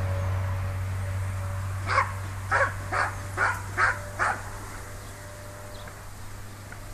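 A dog barking six times in quick succession, about two barks a second, then falling quiet, over a steady low hum.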